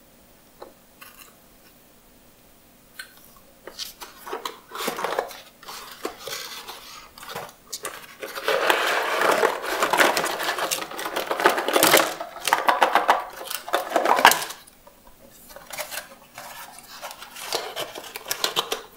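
Cardboard jigsaw puzzle pieces rattling and sliding as a small cardboard puzzle box is opened and tipped out onto a table. A few light clicks give way to box rustling, then several seconds of dense clattering in the middle as the pieces pour out.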